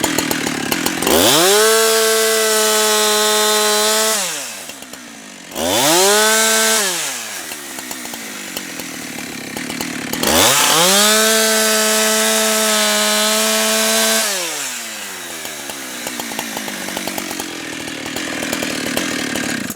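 Husqvarna 365 two-stroke chainsaw revved up to full throttle three times: held for about three seconds, then briefly, then for about four seconds, dropping back to idle between runs.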